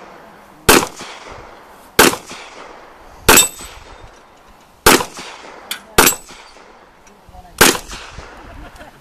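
Pistol shots fired one at a time: six loud shots spaced about one to one and a half seconds apart, each with a short echo, and a fainter crack just before the fifth.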